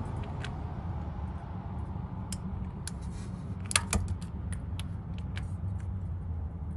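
Scattered light metallic clicks and clinks of a 3/8 ratchet and 24 mm socket working the just-loosened fill plug on an A750F automatic transmission, with a sharper clink about four seconds in, over a steady low hum.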